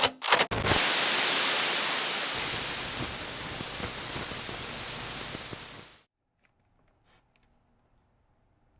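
A few sharp clicks, then a loud, steady static-like hiss that slowly weakens and cuts off suddenly about six seconds in, leaving near silence.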